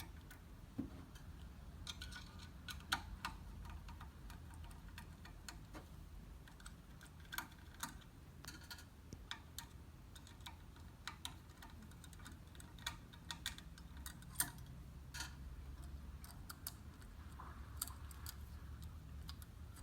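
Small Phillips screwdriver turning out the little screws that hold the motor's relay switch, making scattered light metallic clicks and ticks at irregular intervals over a faint low hum.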